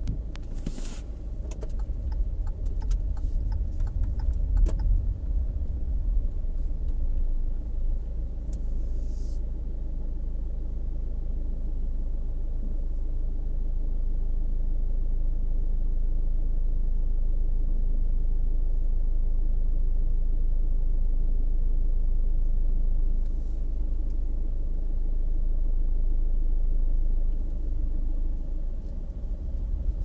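Steady low rumble of a car's engine and tyres heard from inside the cabin as it drives slowly along a road. A few light clicks and knocks come during the first few seconds, and a short hiss about nine seconds in.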